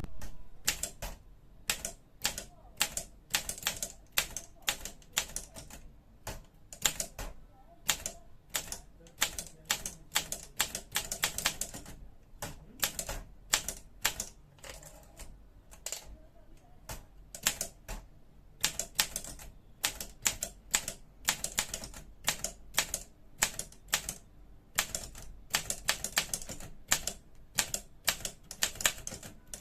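Olympia SM3 manual portable typewriter being typed on: a quick, uneven run of key strikes, several a second, with a few short pauses.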